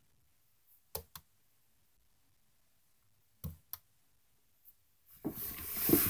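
Computer mouse clicks in two quick pairs, about a second in and again about three and a half seconds in, as Street View is clicked through. Near the end comes a louder rush of noise lasting about a second and a half.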